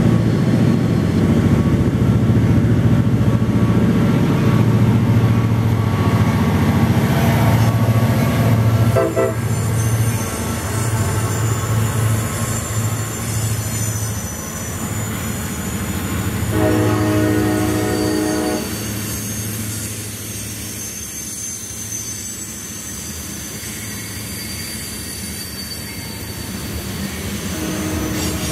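CSX freight train passing close: the diesel locomotives' engines rumble loudest at first, with the air horn sounding near the start, briefly at about nine seconds, and again for about two seconds past the halfway point. The loaded covered hopper cars then roll by more quietly, with the steel wheels squealing thinly on the rail.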